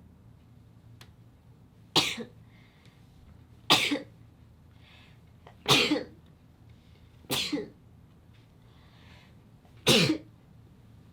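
A sneezing fit: five short, sharp sneezes in a row, about two seconds apart.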